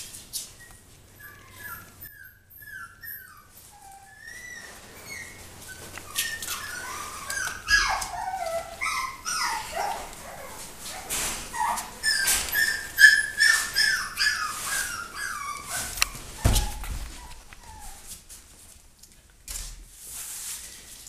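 Five-week-old West Highland white terrier puppies whimpering and yipping in strings of short, high, squeaky cries, with light clicks and one low thump near the end.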